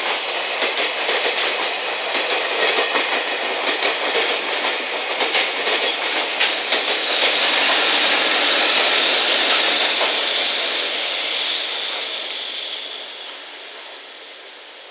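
Long freight train of container wagons rolling past with a rhythmic clickety-clack of wheels over rail joints. About seven seconds in, the EF67 electric banker locomotive pushing at the rear passes close with a louder steady hiss, then the sound fades as the train moves away.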